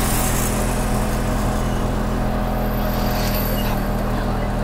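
Autorickshaw engine running steadily at an even pitch, heard from inside the cabin, with road noise under it.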